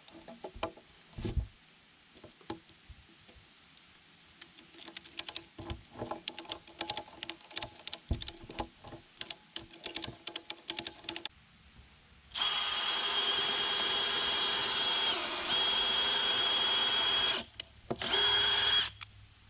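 A run of light clicks and knocks, then a power drill runs at full speed for about five seconds, its high whine dipping once in pitch midway, followed by a second short burst near the end; it is driving long screws into the timber bridge deck.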